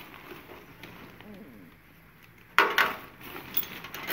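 Black plastic garbage bag rustling as a hand digs through the items inside, with a sharp clatter of objects knocking together about two and a half seconds in and a few lighter clicks after.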